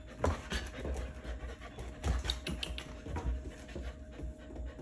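German Shepherd puppies panting, with scattered light taps and soft knocks.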